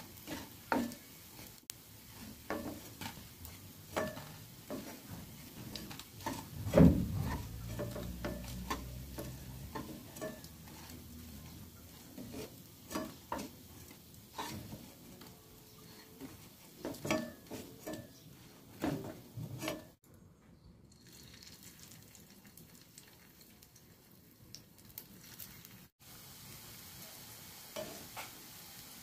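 Moringa leaf pakoras sizzling in hot oil in a nonstick pan, with a wooden spatula clicking, scraping and knocking against the pan as they are turned and lifted out. One louder knock about seven seconds in.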